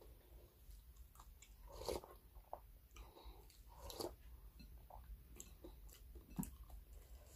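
Quiet, close chewing and mouth sounds of a person eating beef sinigang soup with rice, with louder sips from a spoon about two and four seconds in. Light clicks of a metal spoon against a glass bowl come between bites.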